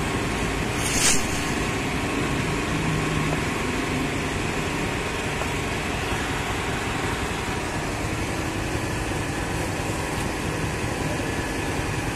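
Steady mechanical background hum and hiss, with a short high hiss about a second in.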